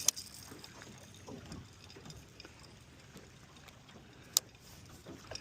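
Two short, sharp clicks about four seconds apart, the second the louder, over a faint, steady background.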